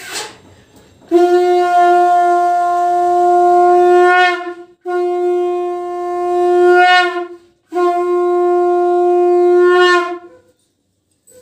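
Conch shell (shankha) blown in three long, steady blasts with short breaks between them, the first starting about a second in. This is the ritual conch call of a Hindu puja.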